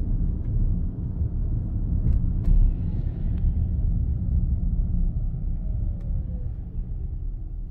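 Low road and tyre rumble inside the cab of a 2025 Chevrolet Silverado EV slowing under high regenerative braking, fading as the truck slows. A faint falling whine comes in during the second half.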